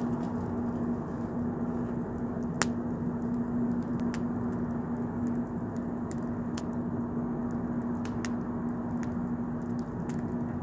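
A wood fire burning, with a steady rush of flame and scattered crackles and pops from the burning logs, one sharper pop about two and a half seconds in. A steady low hum runs under it.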